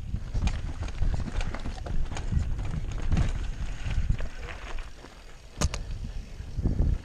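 Mountain bike descending a steep, rocky dirt trail, heard from a helmet camera: tyres rumbling over rocks and roots, with frequent clicks, knocks and rattles from the bike and a sharp clack about five and a half seconds in.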